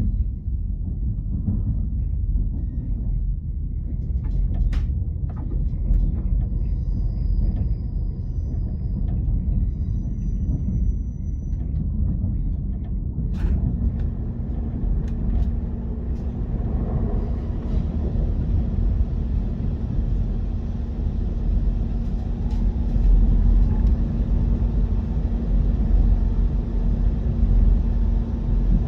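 KTX-EUM electric train running with a steady low rumble. About halfway through, a steady low hum and a rushing hiss join in and stay to the end.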